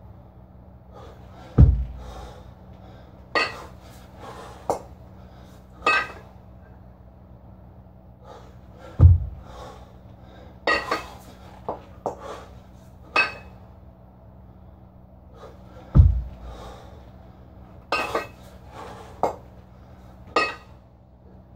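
Two kettlebells worked through repeated clean-and-jerks: three heavy thuds about seven seconds apart, with sharp metallic clanks of the bells and short forceful exhales in between.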